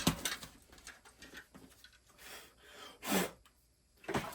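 Hard objects being handled and moved about: a run of light clicks and rubbing, with one louder knock about three seconds in.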